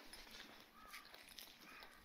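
Near silence: faint street ambience with two short, faint bird chirps, about a second in and near the end.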